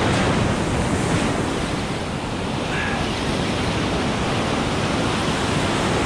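Ocean surf breaking, with churning whitewater washing around the rocks: a steady rush of noise.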